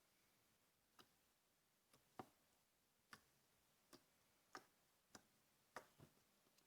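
Faint, short clicks at an uneven pace, roughly one a second, over a very quiet background.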